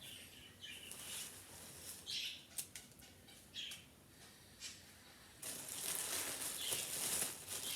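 Rustling of clothing and packaging being handled: short scattered rustles, then a longer, louder stretch of rustling from about five and a half seconds in.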